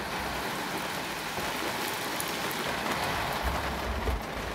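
Steady rain falling on a campervan, heard from inside as an even hiss of drops on the roof and windows. A low rumble swells briefly about three and a half seconds in.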